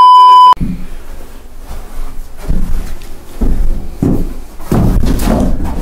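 A loud, steady test-tone beep, the kind that goes with TV colour bars, lasting about half a second at the start. After it come a low rumble and scattered thumps and knocks, like a door and people moving about.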